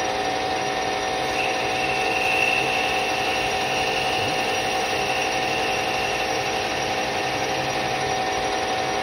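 EMCO metal lathe running, its spindle turning at a steady speed with a constant motor and gear whine while a part-off tool cuts a groove in the spinning workpiece. A faint higher squeal rises over it from about a second and a half in and fades around six seconds.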